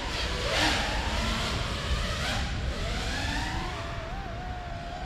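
FPV quadcopter's brushless motors whining, the pitch rising and falling as the throttle changes, over a rush of wind.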